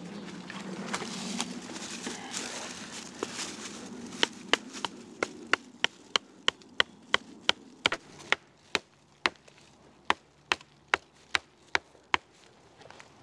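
Rustling in dry leaves, then about twenty sharp knocks at a steady two to three a second: the steel head of a Fiskars Norden N10 hatchet driving a wooden stake into the ground.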